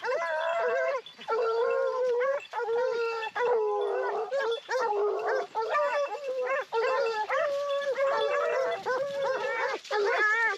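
A pack of Porcelaine hounds baying, many long, overlapping calls one after another: the hounds giving tongue as they work a wild boar's scent line.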